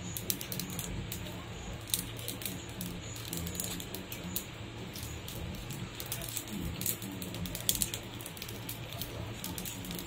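Havan fire crackling, with many sharp, irregular pops and snaps as the wood and offerings burn, over a low steady hum.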